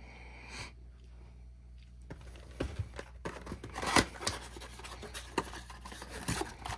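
A cardboard trading-card box being opened by hand, with scraping, tearing and crinkling of cardboard and pack wrappers. The handling sounds come as a string of short noises starting about two seconds in.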